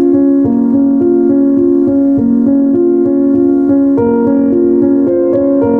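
Background piano music: a light keyboard tune with a steady, even pulse of notes.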